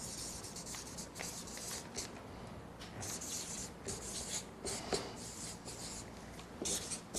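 Felt-tip marker writing on a paper flip chart: a string of short, irregular strokes.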